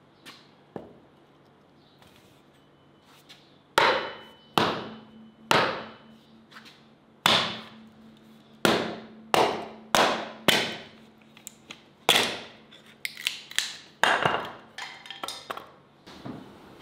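Hatchet splitting kindling: the blade, with a piece of firewood wedged on it, is knocked down onto a wooden chopping block. The sharp wooden knocks start about four seconds in, come roughly one or two a second, and turn into quicker, lighter taps near the end.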